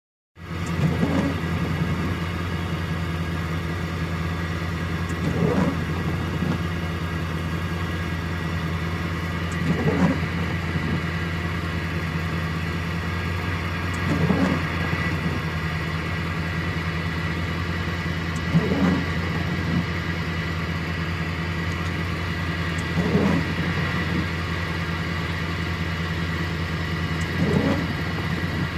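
Steady low hum of a vehicle idling, heard from inside its cabin. Windshield wipers sweep across the wet glass about every four and a half seconds.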